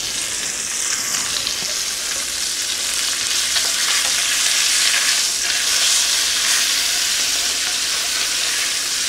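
Mahi-mahi fillets sizzling steadily in browned butter and a little olive oil in a stainless steel frying pan, the sizzle swelling louder around the middle.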